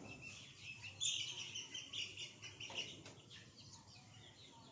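Young chickens peeping: a scattered run of short, high chirps, busiest from about a second in and thinning out toward the end.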